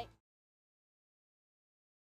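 Dead silence: the voice and background music cut off just as it begins, and nothing follows.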